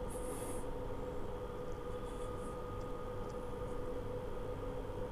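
Room tone: a steady hum with two held tones over faint background noise, and a brief high hiss just after the start.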